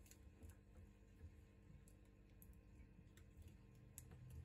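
Near silence with a few faint, scattered clicks and taps as fingers press a replacement battery down into a Xiaomi Redmi 9T's opened frame.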